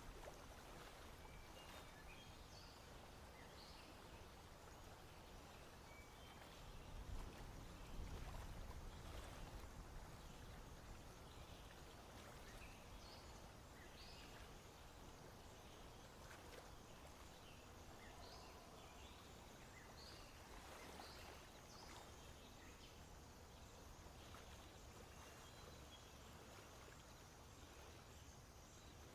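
Faint swamp ambience with scattered short, high bird calls. A low rumble swells about seven seconds in and fades after about three seconds.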